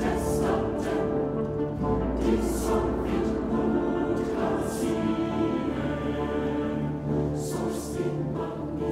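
Dramatic orchestral music with a choir singing.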